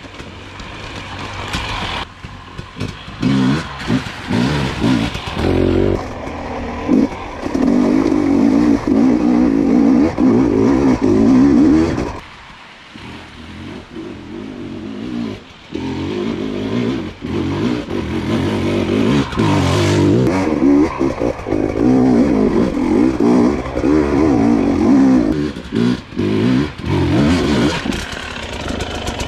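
2022 GasGas EC250 two-stroke dirt bike engine revving hard on a steep, rocky single-track climb, the throttle rising and falling in uneven surges. It grows louder over the first several seconds as the bike comes closer, and drops off briefly about twelve seconds in.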